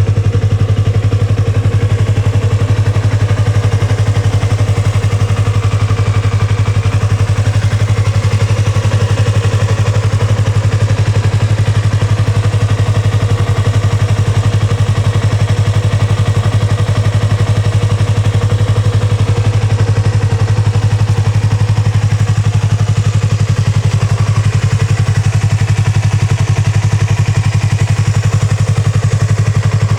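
Yamaha YZF-R25's 250 cc parallel-twin engine idling steadily through a Yoshimura Cyclone aftermarket silencer, with no revving.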